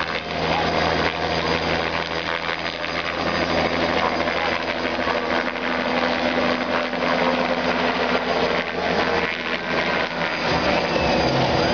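Small turbine helicopter flying low overhead: a steady turbine whine over the beat of its two-blade rotor.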